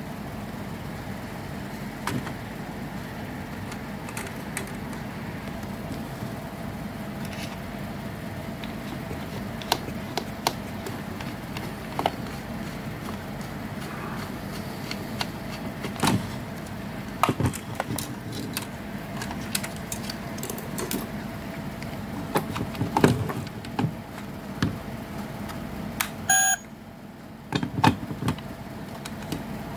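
Scattered clicks and knocks of a small screwdriver and fingers working on a toy train's plastic chassis, over a steady hum.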